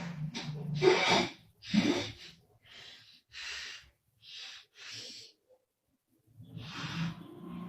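A woman snoring in her sleep: a low rattling snore, two loud breaths about one and two seconds in, then four shorter, quieter breaths and a pause, with the rattling snore returning near the end.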